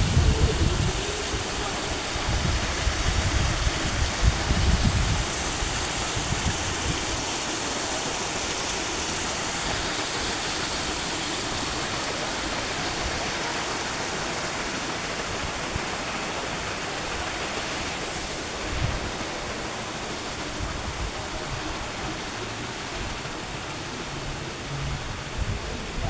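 Steady rushing hiss, much like running water, with irregular low rumbling gusts buffeting the microphone in the first several seconds.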